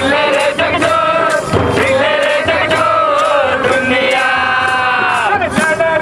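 Several voices singing a song together over a steady beat, with one long note held and sliding down near the end.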